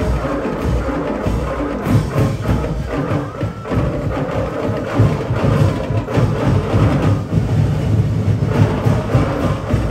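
Live festival percussion band playing a fast, driving rhythm on drums and wooden percussion, with heavy drumbeats underneath.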